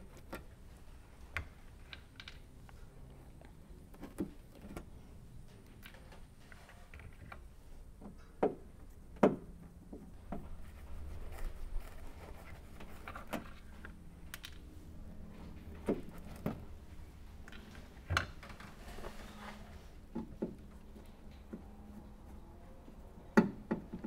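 Scattered light clicks and small knocks as plastic trim clips are unscrewed with a Phillips screwdriver and pulled out of a car's trunk lid carpet liner, over a low steady hum.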